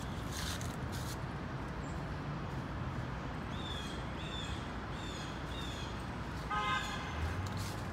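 Steady city traffic rumble. A bird chirps four times in the middle, and a car horn gives a short toot near the end.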